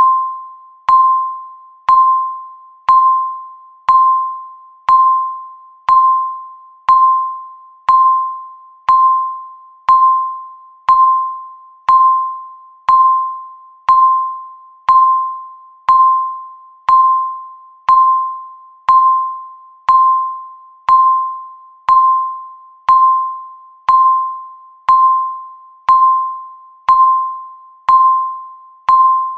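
Countdown timer beeping once a second: a single clear tone of one pitch, each beep sharp at the start and fading out before the next.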